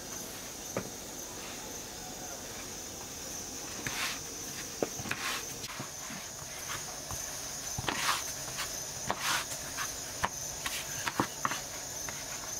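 Insects chirring steadily at a high pitch, with scattered clicks and several short rustles of handling.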